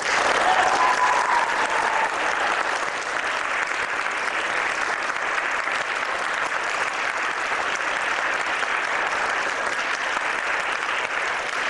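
Audience applauding, loudest in the first couple of seconds and then steady.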